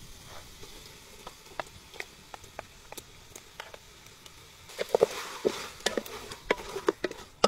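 A spoon scraping thick spiced yogurt masala off a plate into a metal pot of browned mutton, with scattered light clicks. From about five seconds in, louder wet squelching and knocks against the pot as the paste is worked into the meat.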